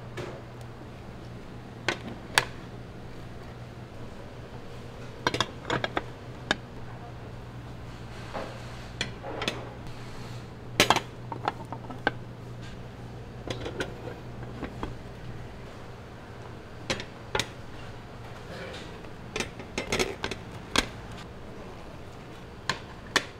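Dishes, utensils and metal pans clinking and knocking now and then, sometimes several in quick succession, over a steady low hum.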